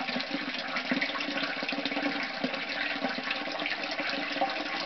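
Sump pump discharging water, with a steady gushing and splashing of water.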